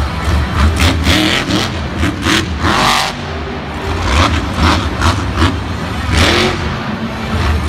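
Monster truck's supercharged V8 revving hard and unevenly, its loudness rising and falling from moment to moment.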